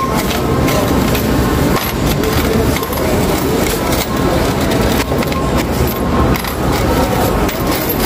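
Supermarket checkout ambience: a steady hubbub of indistinct voices, with scattered clicks and knocks from the checkout lanes and a brief beep right at the start.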